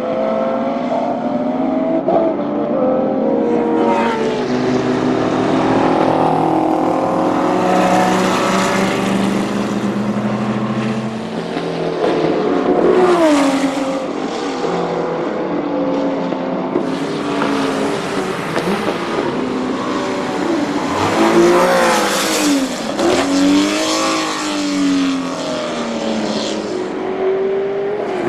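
Porsche 917 K racing cars' air-cooled flat-twelve engines running at speed, with several passes whose pitch swoops up and falls away, loudest about halfway through and again near the end. A steadier engine note runs underneath.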